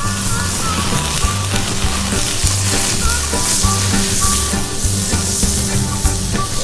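Hot oil sizzling steadily in a cast iron skillet over an open campfire, setting in abruptly, with background music underneath.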